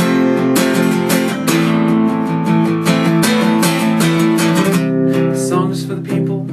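Acoustic guitar strummed in a steady chord pattern, with the strumming getting lighter and sparser near the end.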